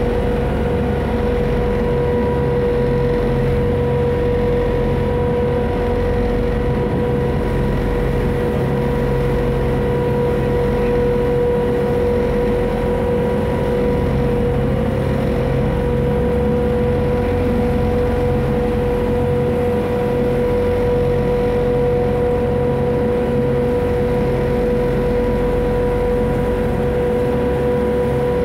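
A Friendship Boat water taxi's engine running steadily at cruising speed: a constant drone with a steady whine over a low rumble.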